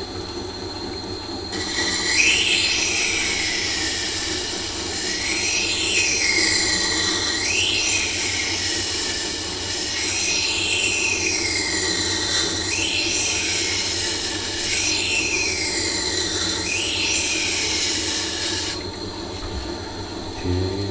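Knife blade drawn back and forth along the turning wet grindstone of a Tormek sharpening machine, over the machine's steady low motor hum. The steel gives a high scraping hiss that sweeps down and back up in pitch with each pass, about every two seconds, and stops near the end while the motor keeps running.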